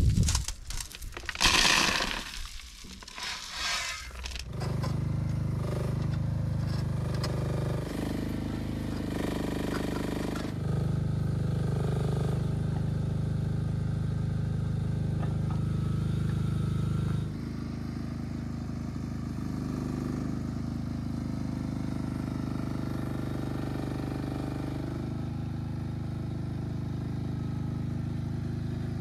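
Stones crashing and scraping for the first few seconds, then the engine of a small construction machine runs steadily. Its level steps up about ten seconds in and drops back about seven seconds later.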